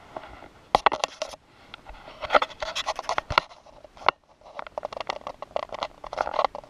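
Scraping, rustling and clicking of a homemade PVC pipe camera rig and a nylon MOLLE vest being handled and adjusted, in irregular bursts with short pauses.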